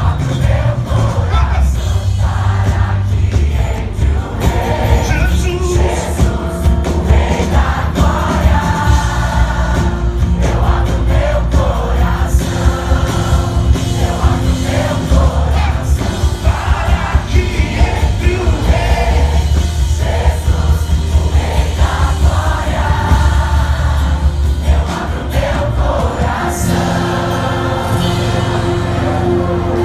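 A gospel vocal group singing live a cappella: several voices in close harmony over a deep sung bass line and a steady beat, recorded by a phone in the audience.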